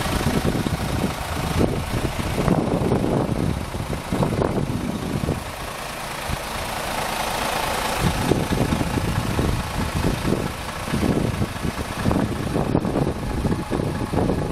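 The Iveco Stralis 500's 13-litre six-cylinder diesel idling, a continuous rumble that rises and falls unevenly.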